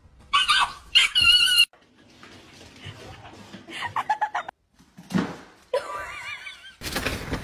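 Pet animals calling in several short bursts of high, wavering cries, broken by brief pauses; a loud rush of noise follows near the end.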